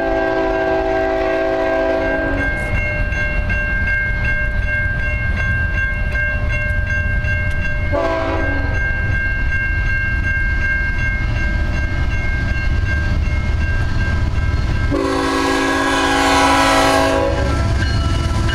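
Approaching BNSF ET44C4 diesel locomotive sounding its multi-chime horn for a grade crossing: a long blast at the start, a short one about eight seconds in, and a louder long one about fifteen seconds in, over the low rumble of the engine and train. A crossing warning bell rings steadily throughout.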